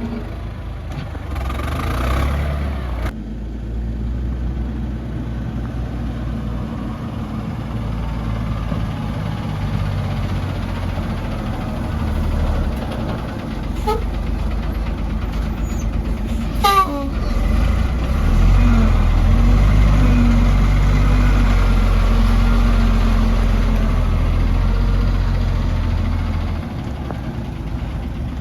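Heavy diesel earthmoving machinery running with a steady low rumble that swells louder for several seconds past the middle. About two seconds in, a short burst of hiss cuts off sharply, and a brief wavering high squeal comes a little past halfway.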